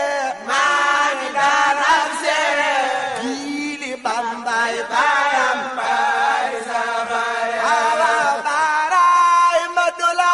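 Several voices chanting a devotional song, the melody wavering and ornamented and held in long lines.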